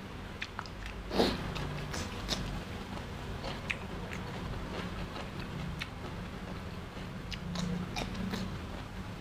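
A person chewing food with scattered wet mouth clicks and smacks, the loudest about a second in.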